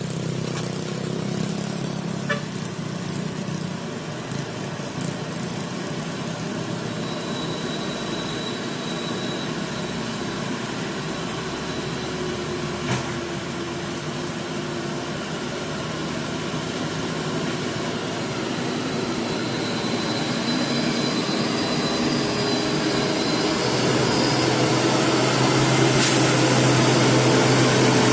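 Hino 500 dump truck's diesel engine running as the truck comes along the muddy road toward the listener, growing steadily louder over the second half.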